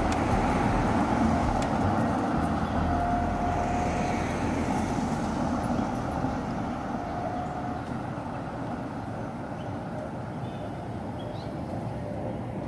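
Street traffic: cars driving through an intersection, the engine and tyre noise easing off gradually as the street empties near the end.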